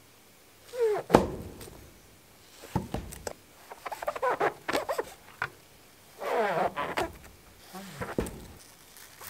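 Steel cleaver cutting thick slices through the soft, spongy cap of a black bolete mushroom, the flesh giving off squeaky, squelching noises in three stretches as the blade presses through. The blade knocks sharply on the wooden chopping board several times.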